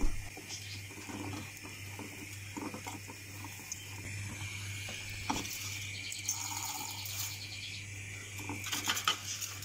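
Silicone spatula stirring chocolate pieces into melted butter in a small stainless steel saucepan: soft scraping with occasional light knocks against the pan, a few of them close together near the end, over a steady low hum.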